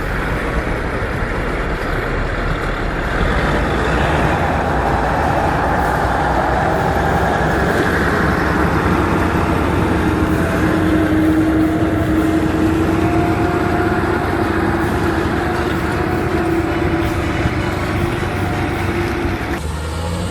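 A heavy vehicle's engine running steadily. A whining tone comes in about halfway through, and the sound cuts off shortly before the end.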